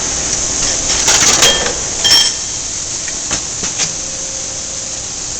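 Koyo KC 500 centerless grinder running its automatic cycle: a steady hiss with a few sharp metallic clanks and clicks as the gantry loader handles the camshaft. The loudest clanks come about a second in and again about two seconds in.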